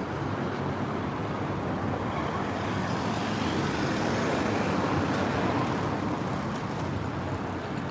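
Road traffic on a wide city avenue: a steady hum of tyres and engines from passing cars, taxis and vans, a little louder in the middle.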